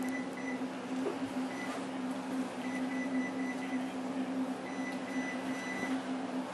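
Steady electrical hum with a strong low tone and a fainter high whine that comes and goes.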